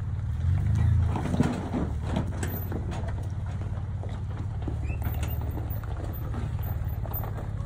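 Off-road 4x4 engine running at low revs, with scattered knocks and rattles and a sharper knock about a second and a half in.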